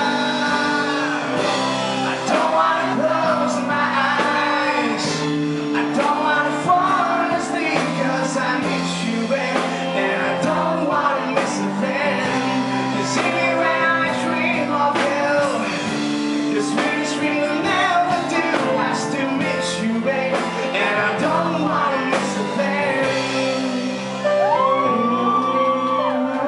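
Live acoustic performance of a power ballad: a singer's voice carrying long melodic lines over guitar accompaniment.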